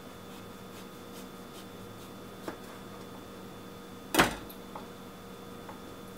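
A kitchen knife on a plastic cutting board: a few light taps while lemon ends are cut, then one louder sharp knock about four seconds in, over a faint steady hum.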